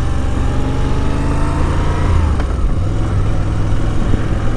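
Moto Guzzi V85 TT's air-cooled transverse V-twin pulling in a low gear. The revs climb for about two seconds, dip sharply on a clutch-in upshift, then pull on steadily. Wind noise rushes underneath.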